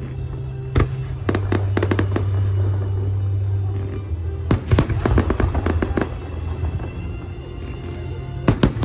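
Aerial fireworks bursting and crackling in clusters: a bang about a second in, then rapid crackles, another dense cluster around the middle and more near the end. Steady music plays underneath.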